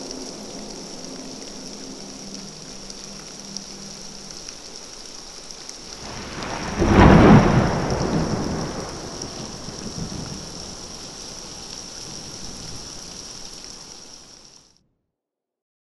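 Steady rain with a clap of thunder about seven seconds in that rumbles away over the next few seconds. The rain fades out near the end.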